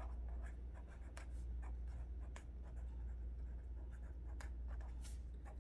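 Someone writing by hand: faint, irregular short scratching strokes, over a steady low hum.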